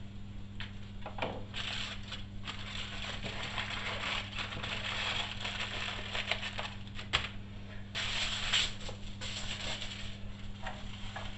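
Aluminium foil crinkling and rustling in irregular crackly bursts as it is torn off and wrapped loosely around cooked chicken breasts, over a steady low electrical hum.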